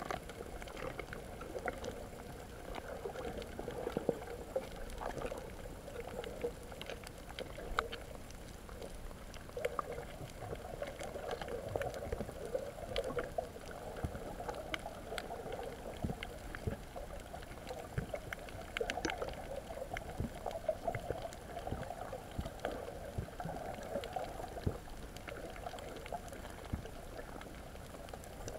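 Muffled underwater sound of shallow reef water: a steady low rush of moving water, scattered with many short sharp clicks and crackles.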